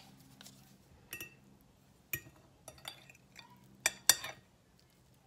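Fork and knife clinking and scraping against a ceramic plate while cutting a soft pancake into small pieces: a handful of scattered clinks, the loudest pair about four seconds in.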